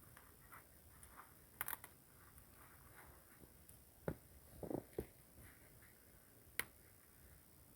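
A few scattered sharp clicks and snaps over a very quiet background: one about a second and a half in, a short cluster around four to five seconds in, and a single sharp one near the end.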